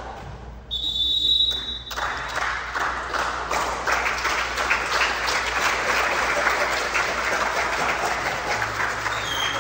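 Spectators clapping and cheering at a youth game, starting about two seconds in and carrying on. Just before it comes a single short, high whistle blast.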